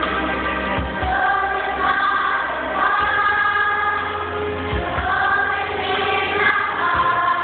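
Primary-school children's choir singing a pop medley together over a low bass line that shifts pitch every few seconds.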